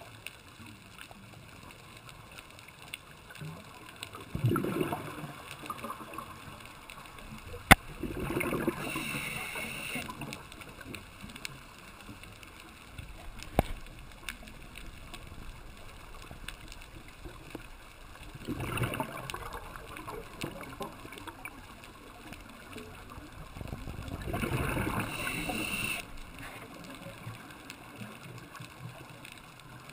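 Scuba diver breathing through a regulator underwater: about four rushing bursts of breath and exhaled bubbles, several seconds apart. Two sharp clicks come between them, the first the loudest sound.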